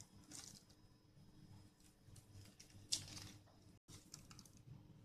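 Faint scraping and rustling of a knife cutting through thinly rolled cocoa biscuit dough on butter paper, with one louder scrape about three seconds in.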